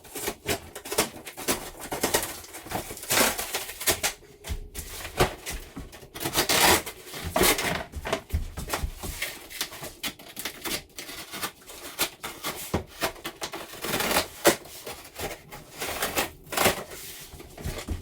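Cardboard packaging of a new dishwasher being cut and pulled open: irregular rustling, scraping and clicks, with louder tearing bursts about six to eight seconds in and again near the end.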